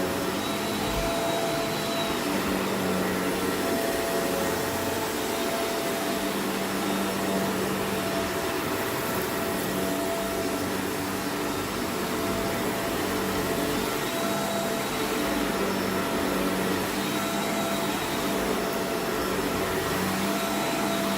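Vacuum cleaner running steadily over dirt, a constant motor hum and airflow rush with no change in pitch.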